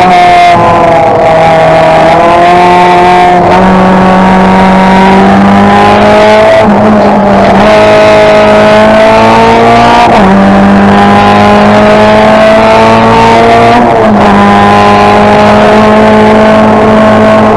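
Suzuki Swift GTi's four-cylinder engine under hard acceleration, heard loud from inside the stripped race-car cabin. Its pitch climbs steadily and drops at four gear changes, about three to four seconds apart.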